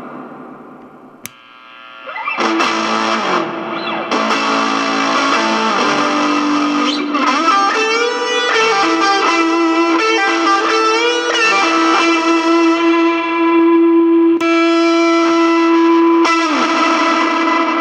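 Electric guitar played through a distortion, tremolo and reverb effects box: chords, then wavering, bending notes and a long held note ringing out, with a new chord struck near the end. A sharp switch click comes about a second in.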